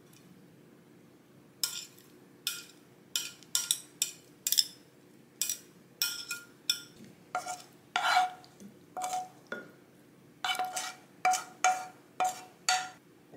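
Metal tongs clinking and scraping against ceramic plates and a curry dish while toppings are moved. There are about twenty sharp clinks, each with a brief ring, spaced irregularly.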